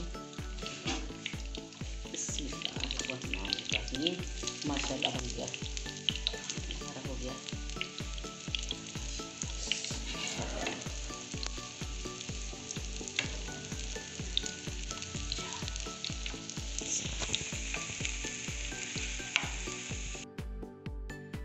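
Mashed potato spirals shallow-frying in hot oil, a steady sizzle full of small crackles and pops, with a metal spatula clicking against the pan as the spirals are turned in the first few seconds and again around halfway. The sizzle cuts off suddenly near the end.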